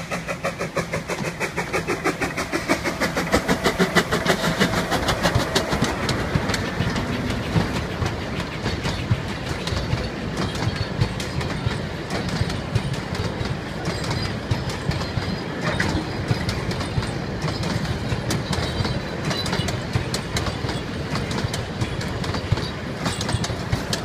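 Puffing Billy narrow-gauge steam locomotive passing, its exhaust beating in a fast, even rhythm that is loudest in the first few seconds. The wooden carriages follow, rumbling and clattering over the rail joints.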